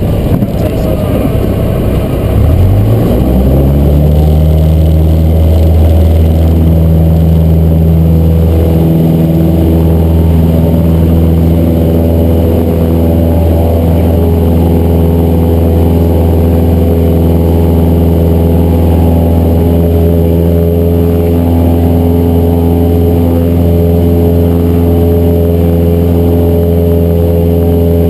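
Cessna 172's piston engine and propeller as power is brought up: the engine note rises over the first few seconds, then holds steady at high power.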